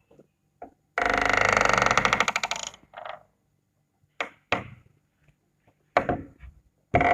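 A door opening: a long hinge creak made of rapid stuttering pulses, lasting close to two seconds, starting about a second in. Several short sharp clicks and knocks follow, and another creak starts near the end.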